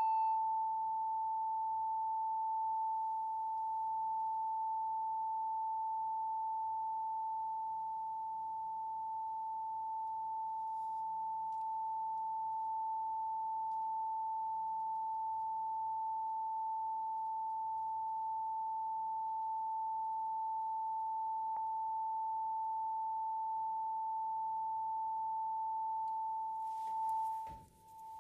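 Steady 885 Hz pure tone from a loudspeaker driven by a function generator, sounding into a perspex resonance tube closed at one end. It holds one pitch with slight rises and falls in loudness, and near the end cuts out for a moment amid a brief rustle of handling before coming back.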